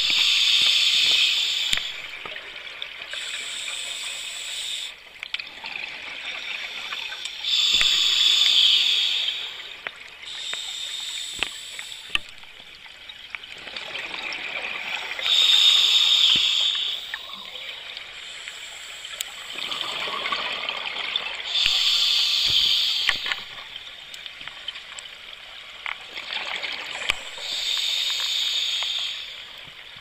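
Scuba diver breathing through a regulator underwater: a loud gush of exhaled bubbles about every six or seven seconds, with a quieter regulator hiss between.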